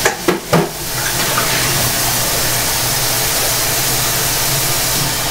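A steady hiss with a low hum underneath it, running on without a break. A few sharp clicks in the first half second come from small glass e-juice dropper bottles being handled.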